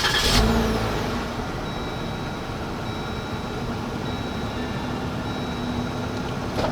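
Jeep Wrangler's engine starting with a loud burst right at the start, then running steadily at idle. Faint steady tones come and go over it.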